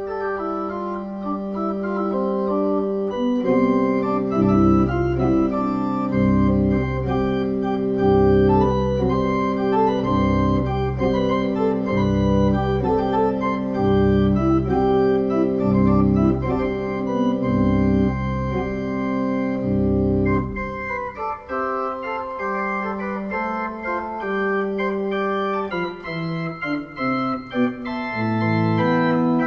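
Two-manual electronic organ playing sustained chords. A few seconds in, deep bass notes join, pulsing about once a second. About two-thirds of the way through the bass drops away into a lighter passage, and a falling bass line comes in near the end.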